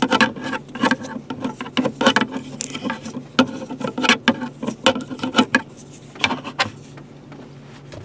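Irregular small clicks and taps of a pocket-knife screwdriver bit working Phillips screws out of a plastic overhead light cover, with plastic handling noise. The clicking stops about seven seconds in, leaving a faint steady hum.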